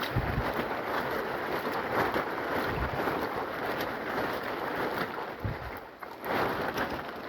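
Steady wash of rain falling in the forest, with wind on the microphone and a few dull thumps.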